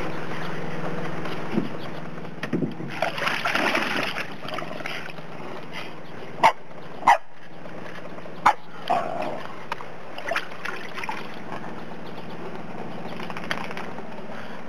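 Dog moving about in a shallow plastic kiddie pool, splashing the water, then barking sharply three times around the middle, the third bark a little apart from the first two.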